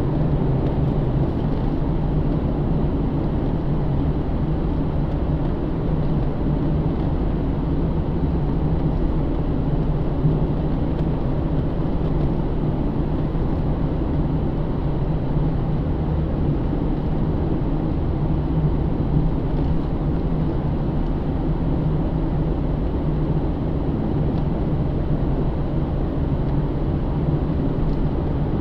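Cabin sound of a 2009 Pontiac G8 GT cruising: its 6.0-litre V8 runs at a steady low drone under tyre and road noise, with no change in pace.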